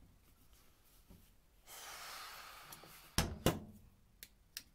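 A long breathy exhale lasting about a second and a half, then two sharp clunks a quarter second apart as the dead plunge router is handled in its table insert.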